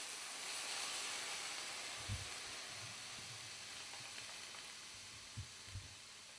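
Chicken pieces, onions and mushrooms sizzling in a hot frying pan with Diet Coke just poured in, the hiss slowly dying down as the liquid takes the heat. A few soft low knocks, about two seconds in and twice near the end.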